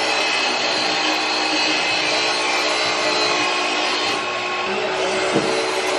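A machine running steadily on site: a continuous motor whine over a hiss, with no change in speed.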